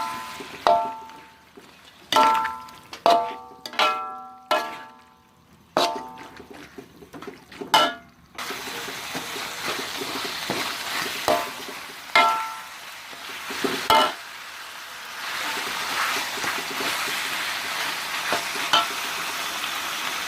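A metal utensil strikes a metal cooking pan about eight times, each strike ringing and dying away. About eight seconds in a steady sizzle of food frying starts, with a few clinks of the utensil against the pan.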